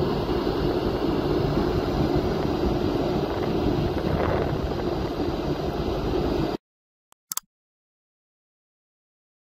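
Caterpillar hydraulic excavator's diesel engine running steadily, with wind buffeting the microphone. It cuts off abruptly about six and a half seconds in, followed by two short clicks.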